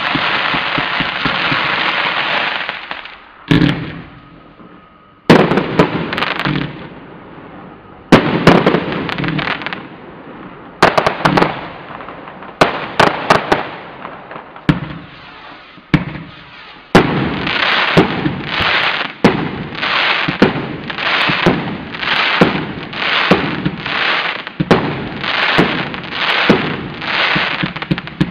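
Grave Shaker 210-shot compound firework cake firing. A dense, rapid volley of shots for the first few seconds gives way to single loud bangs every couple of seconds, and from about halfway on comes an even run of shots, about one and a half a second.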